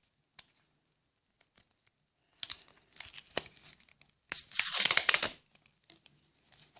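A Magic: The Gathering booster pack's wrapper being torn open: a few crinkles and crackles, then one loud tear lasting about a second, a little past the middle.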